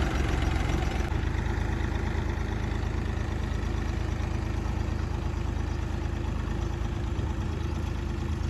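Massey Ferguson 241 tractor's three-cylinder diesel engine running steadily under load while pulling a seed drill, growing slightly fainter as it moves away.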